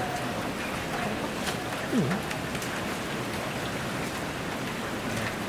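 Steady hissing background noise with faint voices around it, and one short dipping, voice-like sound about two seconds in.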